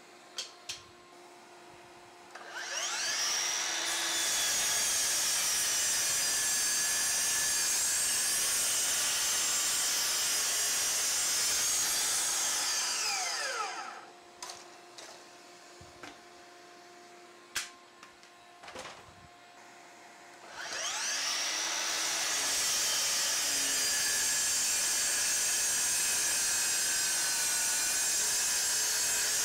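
DeWALT DCS781 60V brushless 12-inch sliding miter saw spinning up with a rising whine, running for about ten seconds on a cut through LVL beam stock, then braking to a stop with a falling whine. A few sharp clicks follow in the pause, and about twenty seconds in the saw spins up and runs again for a second cut.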